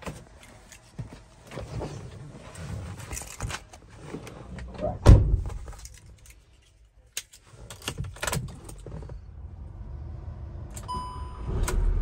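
Handling clicks and jingling keys in the cab of a 2015 VW Transporter, with one heavy thump about five seconds in as the driver's door shuts. Near the end a short dashboard chime sounds and the van's engine starts, settling into a steady low idle.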